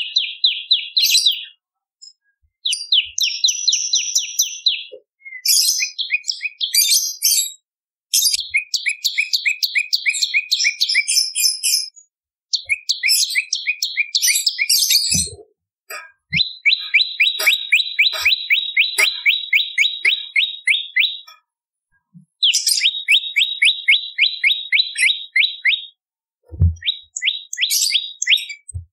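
Prenjak lumut (olive-backed tailorbird) singing: rapid trills of sharp, evenly repeated notes in bursts of a few seconds, broken by short pauses, with some higher, scratchier phrases mixed in.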